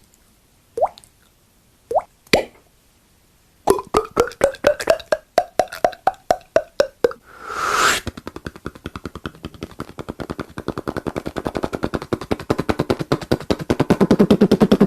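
Human mouth sound effects. First come a few separate pops, each rising in pitch. Then a quick run of pops whose pitch rises and falls, a short hiss, and finally a fast, even rattle of pulses that grows louder toward the end.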